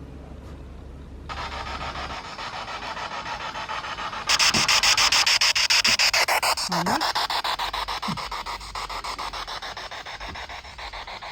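Ghost-hunting spirit box sweeping through radio stations: hissing static chopped into rapid even pulses, switching on about a second in and getting much louder a few seconds later, with a few short low blips that slide in pitch.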